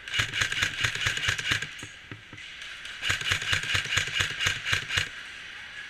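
Airsoft gun firing rapidly on full auto in two bursts, the first about a second and a half long, the second about two seconds long starting about three seconds in.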